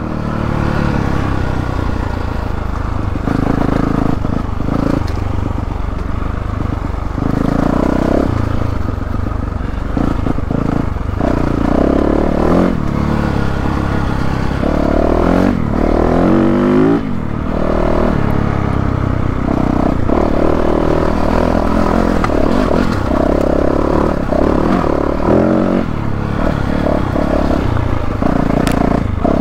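2022 Yamaha YZ450F dirt bike's 450 cc single-cylinder four-stroke engine under way on a dirt trail, its revs rising and falling again and again as the rider works the throttle.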